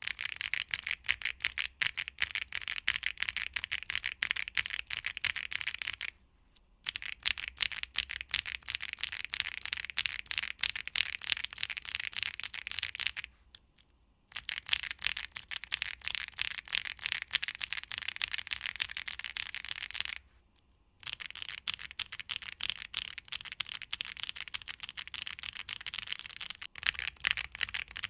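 Fast typing on a Tofu65 2.0 mechanical keyboard with Gateron Blizzard tactile switches, a PC plate and ABS keycaps: a dense stream of key clacks in four runs, broken by three brief pauses.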